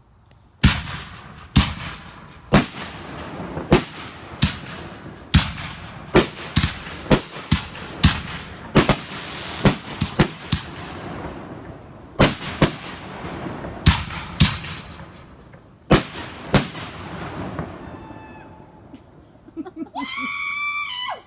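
Consumer aerial fireworks fired from fuse-linked mortar racks, going off in quick succession: about twenty sharp bangs, roughly one a second, with crackling between them. The shots thin out and stop near the end.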